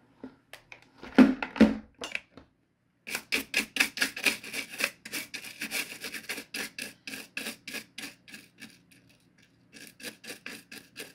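Toothbrush bristles scrubbing the ridged plastic top of a clock radio in quick back-and-forth strokes, several a second, with a brief pause near the end. A couple of louder knocks about a second in as the radio is handled and set down on the wooden table.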